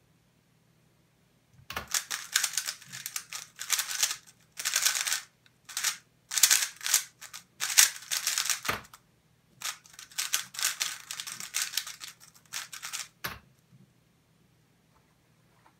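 MoYu Weilong GTS3M Lite 3x3 speedcube being turned very fast: dense runs of plastic clicking and rattling from rapid finger turns, broken by brief pauses. A sharp knock comes about two-thirds of the way through and another near the end, typical of the timer key being struck.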